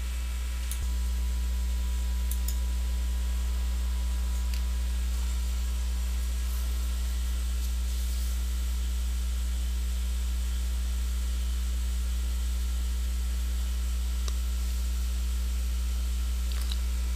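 Steady low electrical mains hum with a faint hiss, a little louder from about a second in, and a few faint ticks.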